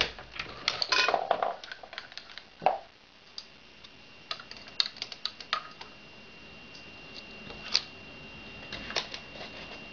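Hornady 366 Auto progressive shotshell press being worked by hand while reloading slugs: irregular clicks and clacks of metal and plastic, busiest in the first couple of seconds, with sharper single clacks a few seconds in and near the end. A faint steady high whine runs under it from about halfway through.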